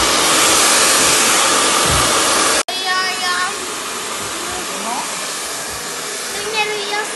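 Handheld hair dryer blowing a steady rush of air onto hair. About two and a half seconds in the sound drops off sharply and goes on quieter, with a voice heard briefly over it.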